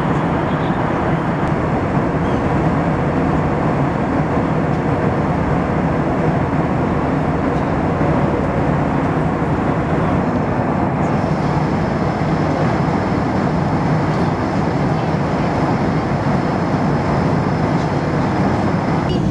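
Steady in-flight cabin noise of an Airbus A320 airliner: jet engine drone and rushing airflow heard from inside the cabin, with a low hum throughout. A faint high whine joins about eleven seconds in.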